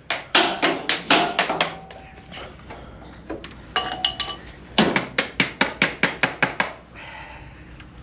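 Sharp metal taps from hand tools struck at a Farmall tractor's battery terminals: a few near the start, then a quick even run of about ten, some five a second, from about five seconds in.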